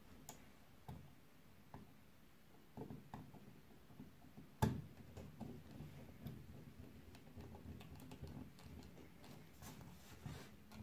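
Faint, scattered clicks and handling noises of a wire being fastened into a small screw terminal block on an electronics control board, with one sharper click about four and a half seconds in.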